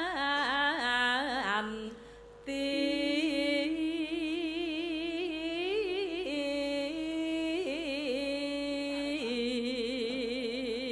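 A woman singing as a sinden, a Javanese gamelan singer, into a microphone: a slow, melismatic Javanese phrase of long held notes with heavy vibrato. There is a short break about two seconds in.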